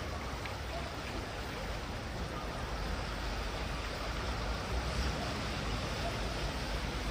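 Swollen river in flood, fast water rushing in a steady, even roar, with a low rumble underneath.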